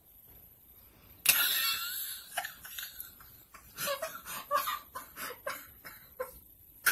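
A woman's laughter stifled behind her hand: a sudden outburst about a second in, then a run of short laughs.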